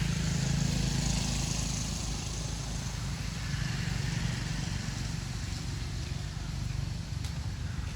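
A motor vehicle engine running steadily: a low, even rumble over outdoor background noise.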